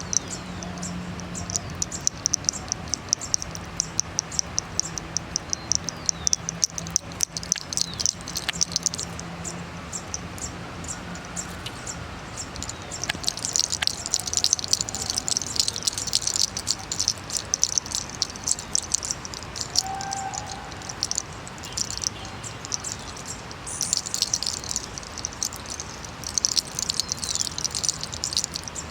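Insects chirping in a rapid, pulsing cricket-like trill that swells and fades in waves.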